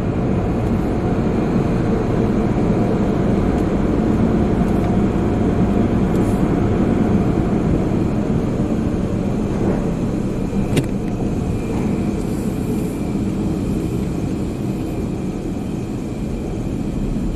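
Steady low rumble of an automatic car wash tunnel's machinery with an idling car, heard from inside the car's cabin, with a single sharp click about eleven seconds in.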